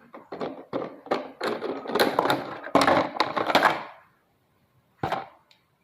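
Packaging being handled while unboxing a toy car: a quick run of crackles and knocks, stopping about four seconds in, then a single knock a second later.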